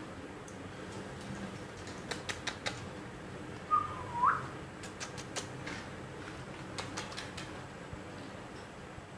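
One short whistle about four seconds in: a held note that dips and then sweeps sharply upward. It comes among scattered light clicks and taps.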